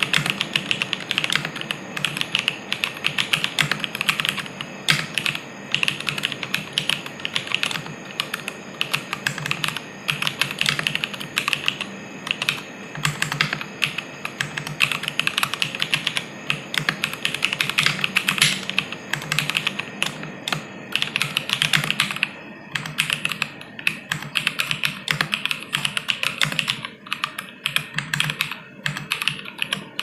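Fast, continuous typing on a Lapis60 60% mechanical keyboard with stock Jwick Black linear switches, an acrylic plate, no dampener and PBT Cherry-profile keycaps: a dense, steady stream of keystrokes.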